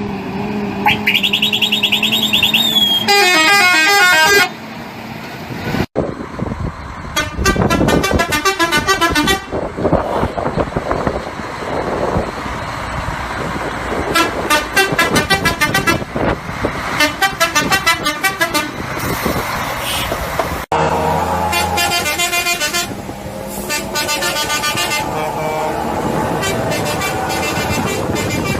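Musical vehicle horns playing fast warbling, trilling tunes of rapidly alternating notes. Several separate horn clips follow one another, broken by abrupt cuts.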